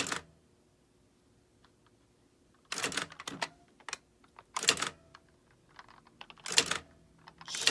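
Computerized electronic typewriter typing: after a quiet stretch, a handful of separate sharp strikes about a second apart, starting about two and a half seconds in, with a few faint clicks between them.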